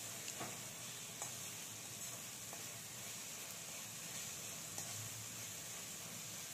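Onion, methi leaves and ginger-garlic paste sizzling in hot oil in a kadhai as a spatula stirs them, with a few clicks of the spatula against the pan. The paste is being fried until it loses its raw taste.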